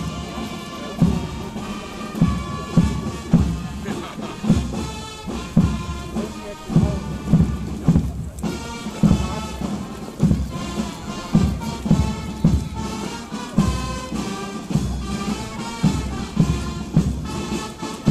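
Marching band playing a march outdoors, its bass drum thumping about twice a second under the melody.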